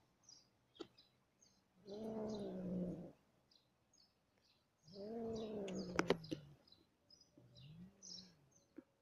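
Cat caterwauling during mating: two long, drawn-out yowls, the second longer, and a shorter, fainter one near the end. Faint bird chirps sound throughout.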